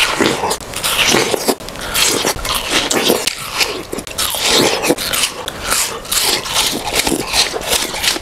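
Repeated bites into a slice of fresh watermelon and juicy, crunchy chewing, with many sharp crunches close to a clip-on microphone.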